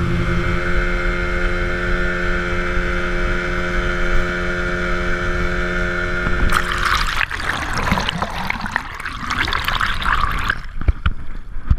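Motorboat engine running steadily at an even pitch, stopping about six and a half seconds in, after which a few seconds of rushing water noise take over.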